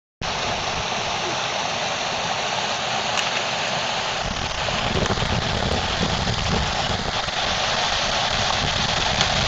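Floodwater rushing off a yard into a creek: a steady rush of water, getting a little louder and deeper about halfway through.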